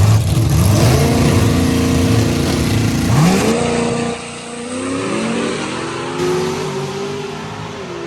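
Drag-racing street car accelerating hard down the strip, its engine pitch climbing and dropping back with each of several gear changes, getting quieter as it pulls away.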